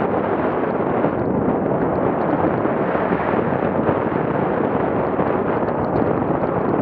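Steady wind rush and rumble on an action camera's microphone as a mountain bike rides fast down a rocky trail, tyres and frame shaking over stones.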